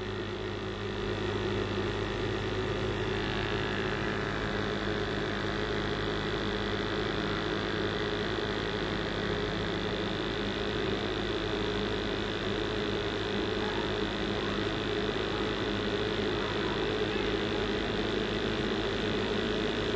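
Commercial gas boiler running at high fire: a steady hum with several constant tones over an even rushing noise.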